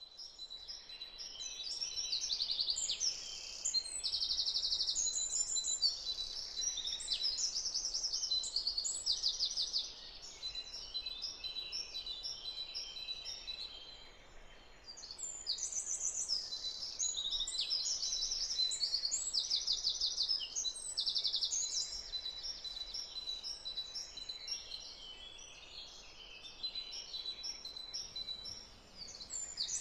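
Several songbirds singing and chirping, overlapping in quick high trills and calls, quieter for a while midway and again near the end. A thin, steady high tone runs beneath them.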